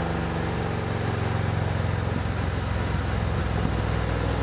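Harley-Davidson 2024 CVO Road Glide ST's Milwaukee-Eight 121 V-twin running steadily on a chassis dyno, its pitch holding level.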